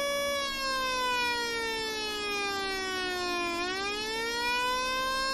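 Hobby-kit electronic 'Brazilian siren' oscillator sounding through an amplifier: a steady electronic tone slides slowly down for about three seconds as the timing capacitor discharges, then climbs back up in about a second and a half as the capacitor recharges, and holds at the high pitch again.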